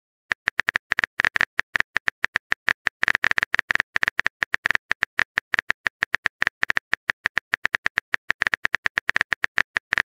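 Rapid, uneven clicking of a phone-keyboard typing sound effect, several taps a second.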